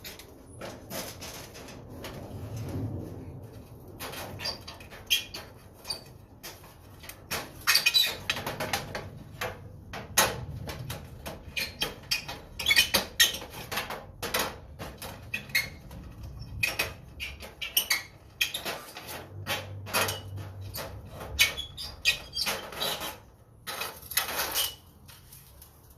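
Irregular clicking, clattering and scraping of metal parts being handled and pulled apart while a fluorescent light fixture is stripped for scrap.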